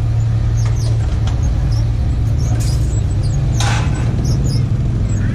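Steady low drone of an idling engine, with a brief rustling hiss a little past the middle.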